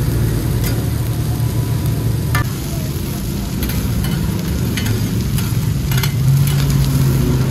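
Mussel omelettes sizzling in oil on a large flat iron pan while metal spatulas scrape and tap against the pan several times as they are turned. A low hum runs underneath and grows louder near the end.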